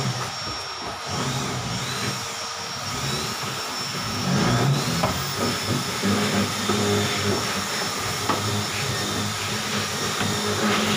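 A machine's motor running steadily, with a hiss over a low hum.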